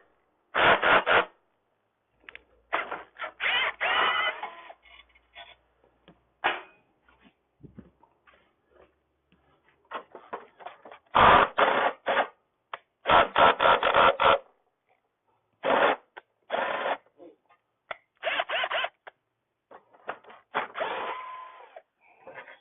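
Power drill run in about a dozen short bursts with pauses between, driving fasteners out of a scooter's frame during a teardown.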